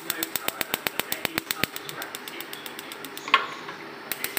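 Gas hob's electric spark igniter clicking rapidly, about eight clicks a second. The clicking stops about three seconds in, a single louder pop follows as the burner catches, and the clicking starts again near the end.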